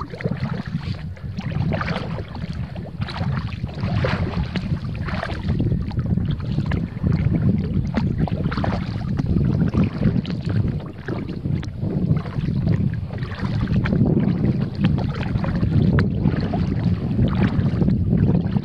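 Kayak paddle strokes splashing in the river every second or so, over a heavy low rumble of wind on the microphone.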